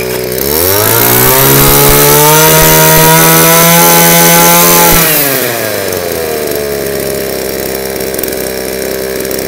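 Tanaka 23cc two-stroke brush cutter engine idling, then revved up about half a second in, held at high revs for a few seconds, and let fall back to a steady idle about five seconds in.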